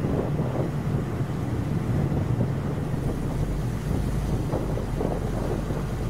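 Gusty wind buffeting the microphone, a steady low rumble, mixed with the drone of a twin-engine jet airliner on approach; the low hum grows stronger about halfway through.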